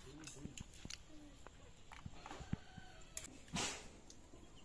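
Chickens clucking faintly, with small clicks of fingers and rice against steel plates, and a brief loud rush of noise about three and a half seconds in.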